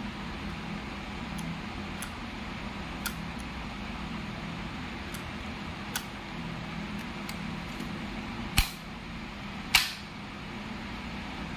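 Plastic clicks and snaps from a moulded case circuit breaker and a detached part of it being handled: a few light clicks, then two loud sharp clicks about a second apart near the end, over a steady background hum.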